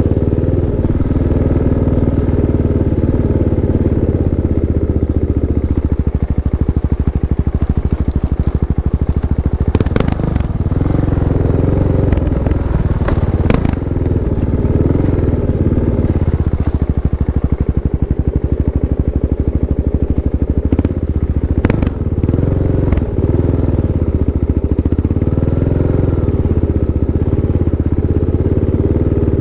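Kawasaki KLX 650's single-cylinder four-stroke engine running steadily at low revs, with a few sharp clicks or knocks about ten, thirteen and twenty-two seconds in.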